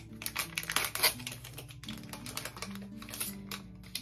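Plastic wrapper of a pregnancy test crinkling and tearing as it is opened by hand, a quick irregular run of crackles. Background music with held low notes plays underneath.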